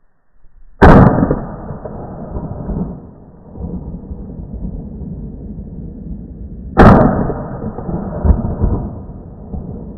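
Two 12-gauge shotgun shots about six seconds apart, each a sharp crack followed by a long rumbling echo.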